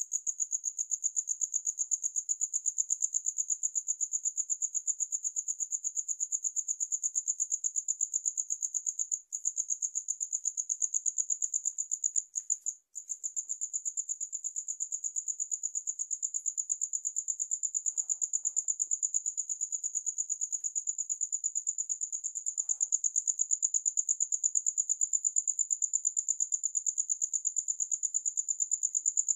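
Cricket chirping in a fast, even trill on one high note, steady throughout, with two brief breaks about nine and thirteen seconds in.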